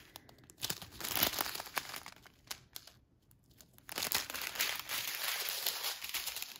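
Small plastic bags of diamond-painting drills crinkling as they are handled and shuffled, with a short pause about three seconds in.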